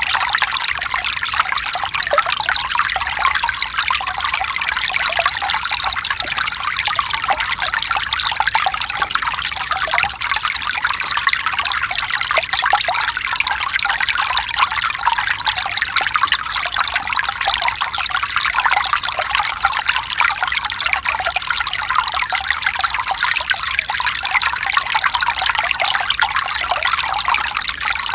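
Mountain stream running over rocks: a steady, even rush and trickle of water.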